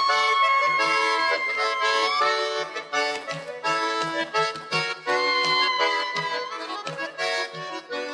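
Accordion playing a brisk Russian folk dance tune, a held melody line over a steady rhythmic bass-and-chord accompaniment.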